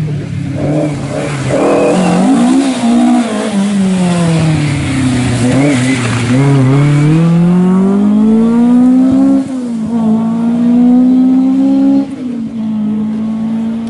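Mk2 Ford Escort rally car driven hard through a bend: the engine note drops as it slows for the corner, then climbs as it accelerates away, with two upshifts, one just over halfway and one near the end, after which the sound fades as the car pulls away.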